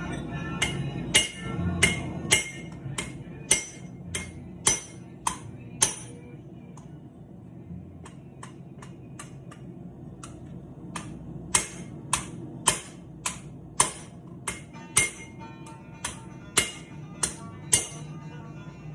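Hand hammer striking steel on an anvil while forging out a Bowie knife blade: sharp ringing blows about two a second, lighter for a few seconds in the middle, then heavy again. Background music plays underneath.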